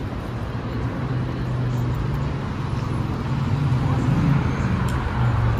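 Road traffic on a busy city street: a steady low engine hum over the wash of passing vehicles.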